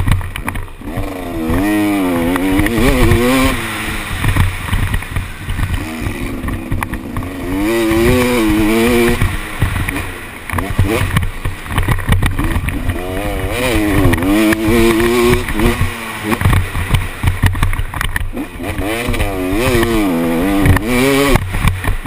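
KTM 250 SX two-stroke motocross bike ridden hard, its engine revving up and falling back about four times as the rider works the throttle and gears. Heard from the rider's helmet, with rough wind noise on the microphone underneath.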